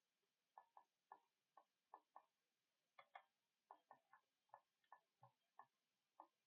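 Faint, irregular clicking at a computer: about fifteen short clicks, some in quick pairs.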